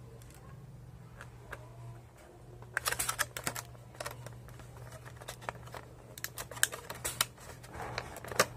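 Light plastic clicks and taps of hands handling a USB Wi-Fi adapter and its packaging. They come in a cluster about three seconds in and again near the end, over a steady low hum.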